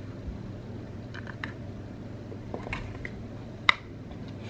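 Light handling clicks as a micro USB cable plug is worked into the port of a Pineng PN-899PD power bank, with one sharp click about three and a half seconds in, over a steady low hum.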